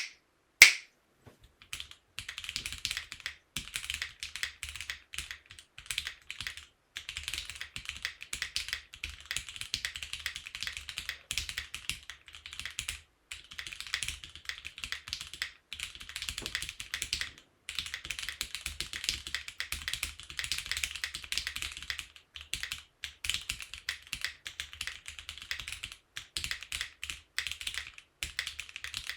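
Typing on a Monsgeek M1 mechanical keyboard with stock Gateron Pro Yellow linear switches and GMK keycaps, built with no foam and a Forcebreak mod: a continuous run of quick, irregular keystrokes with brief pauses. A single loud sharp snap sounds about half a second in, before the typing starts.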